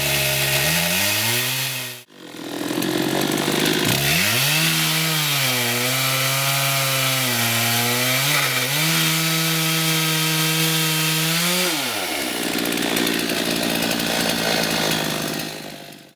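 ICS diamond chainsaw running at wide-open throttle, plunge-cutting into limestone; its note sags and recovers as the chain bites under steady pressure. The sound drops out briefly about two seconds in, and in the last few seconds the note gives way to a steady hiss.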